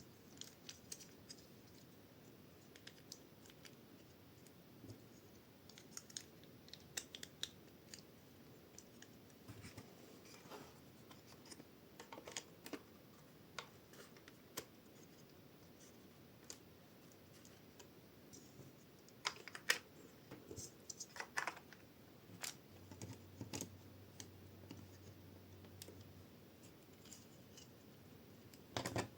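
Faint plastic LEGO bricks being handled and pressed together: scattered light clicks and scrapes, busier and louder about twenty seconds in.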